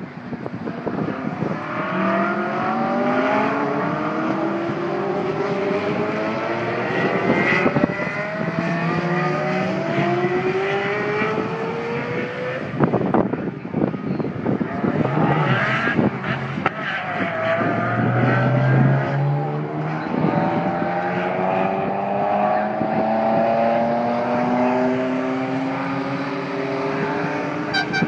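Ferrari sports car engines accelerating hard, pitch climbing repeatedly and dropping back at each gear change, one car after another. Wind buffets the microphone throughout.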